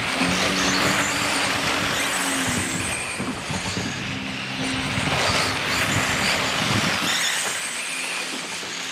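Electric radio-controlled racing trucks with 13.5-turn brushless motors running laps on an asphalt track: motor whine and tyre hiss that swell and fade as the trucks pass.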